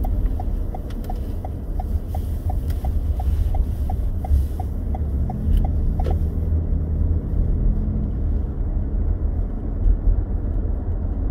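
A car driving, heard from inside the cabin: a steady low road and engine rumble, with the turn-signal indicator ticking about three times a second until about halfway through, when the turn is made and the ticking stops. The engine note then rises briefly as the car pulls away.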